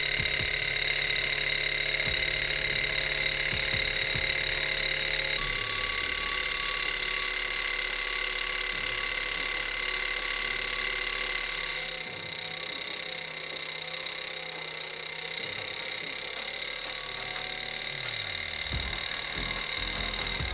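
Small twin-cylinder model Stirling engine running, heated by an alcohol burner: a steady high-pitched mechanical whir. Its tone shifts abruptly about five seconds in and again around twelve seconds in.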